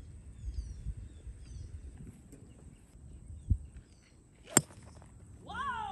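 A golf club striking a ball once, a single sharp crack about three-quarters of the way through, over faint outdoor wind rumble with small birds chirping briefly.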